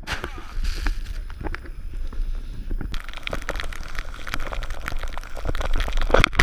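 Wind rumbling on a pole-held action camera's microphone during a fast descent through deep powder snow. From about three seconds in, a dense crackling of powder spraying against the camera and rider.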